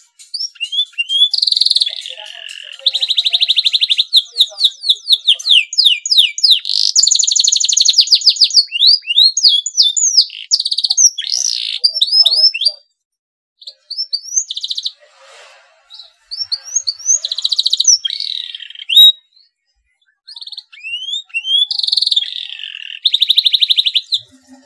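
Domestic canary singing: bursts of fast trills and rising whistled notes, broken by two short pauses of a second or two.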